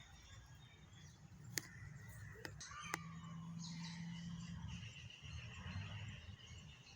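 Birds calling and chirping faintly outdoors over a low rumble, with two sharp clicks about a second and a half apart.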